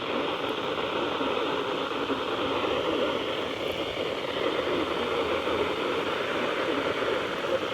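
Steady static hiss from a radio receiver with no voice coming through, with no breaks or changes.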